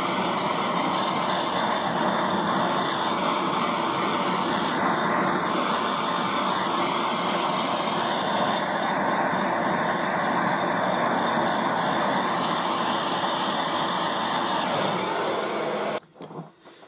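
Gas blowtorch flame burning with a steady roar as it heats the steel body of a lathe live centre, warming the housing to expand it so the bearing will go in. The roar cuts off suddenly about a second before the end.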